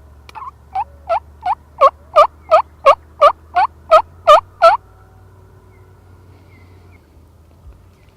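A series of about a dozen turkey yelps, evenly spaced at roughly three a second, growing louder through the run and then stopping.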